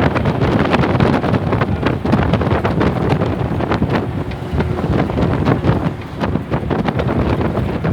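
Cabin noise of a moving Tamil Nadu government bus: steady engine and road noise with wind buffeting the microphone, and many quick knocks and rattles from the bus body.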